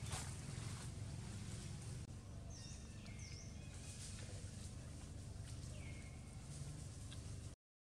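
Outdoor ambience: a steady low rumble with a few short, high chirps that glide in pitch, about two to six seconds in. The sound cuts out briefly near the end.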